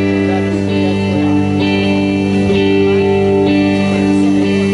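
Live band music, an instrumental stretch with no singing: electric guitar playing sustained chords over a held low bass note, the upper notes changing every second or so.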